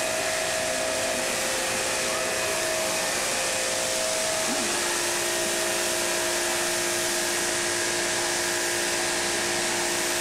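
Pressure washer running steadily, its motor and pump giving a constant whine under the hiss of the water jet spraying a painted wall.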